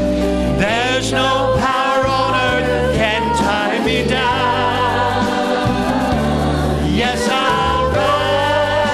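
A church vocal group, mostly women's voices with a man's, singing a gospel song in long held notes with a wavering vibrato, over a recorded accompaniment with a steady bass line.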